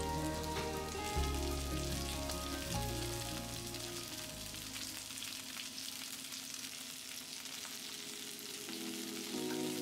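Potato-starch-coated whiteleg shrimp sizzling in oil in a frying pan, a steady sizzle with fine crackles. Background music plays over the first few seconds, fades away, and comes back near the end.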